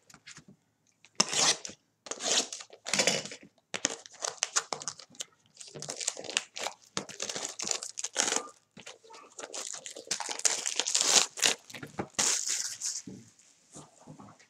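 Plastic shrink wrap being torn and crinkled off a sealed trading card hobby box, in a run of irregular crackling rustles that die away near the end.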